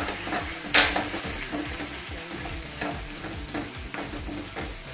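Sliced onions and curry leaves sizzling in hot oil in a nonstick wok as a wooden spatula stirs and scrapes through them, the onions being sautéed with salt to draw out their water. A sharp knock of the spatula on the pan comes about a second in.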